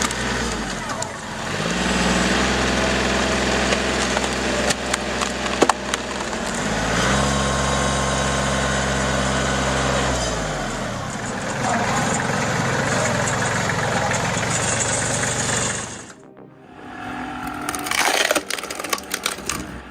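Engine of a firewood-processing machine running under load, its revs rising and falling, with wood cracking and splintering as logs are split. The sound cuts off about 16 seconds in and gives way to a quieter scene with a few sharp knocks.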